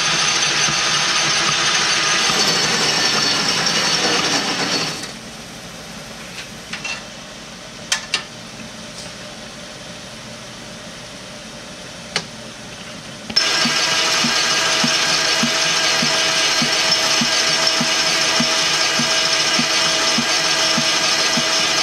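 Metal lathe running with a steady mechanical whine and gear clatter while turning a metal tube. About five seconds in the sound drops much quieter for roughly eight seconds, with a few sharp clicks, then comes back loud with a faint regular tick about one and a half times a second.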